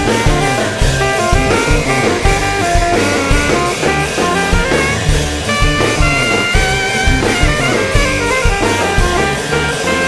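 Live rock band playing an instrumental passage: drum kit keeping a steady beat under bass notes and a stepping lead melody line.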